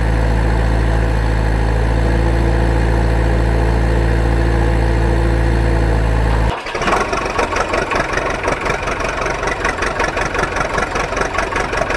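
Engine sound, loud and steady: a low idling drone that cuts off abruptly about six and a half seconds in and switches to a brighter engine note that pulses rapidly. The sudden switch suggests an engine sound effect laid over the toy vehicles rather than their own noise.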